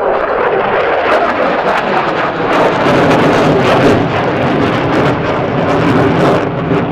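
F-16 fighter jet's engine at full power in afterburner as it passes and climbs away, a loud jet noise whose tone drops in pitch over the first second and a half as it goes by, followed by a sharp, ragged crackle.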